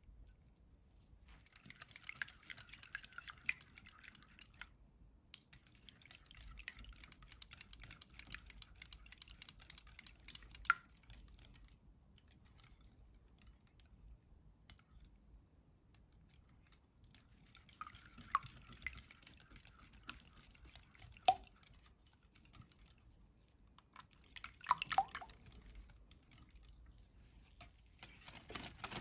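Wire whisk beating raw eggs in a glass bowl: rapid clicking of the wires against the glass with wet sloshing, in several bursts separated by short pauses, with a few sharper knocks of the whisk on the bowl.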